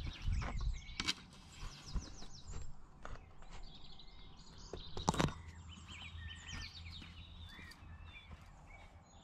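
Wild birds singing and chirping across an open field, over a low steady wind rumble on the microphone. Two sharp knocks cut through, about a second in and about five seconds in.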